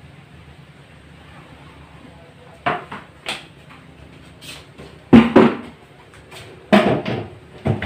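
A series of sharp knocks and clatters from an emptied metal paint can and a paint roller tray being handled and set down, the loudest two coming about five and seven seconds in.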